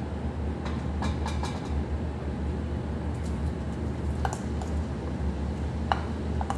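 Kitchen utensil noises: light clicks and knocks of a wooden spatula against a bowl and a non-stick wok as chopped onion is scraped into it, over a steady low hum.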